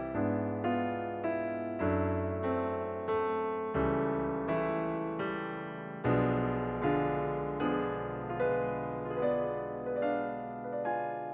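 Soft background piano music: gentle notes struck at an even, slow pace, each fading after it is played.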